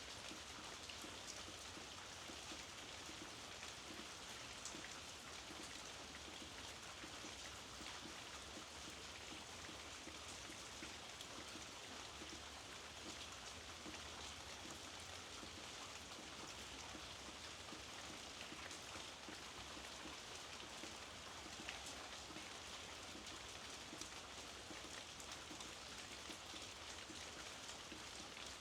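Steady rain falling, a continuous even hiss with many small scattered drop ticks.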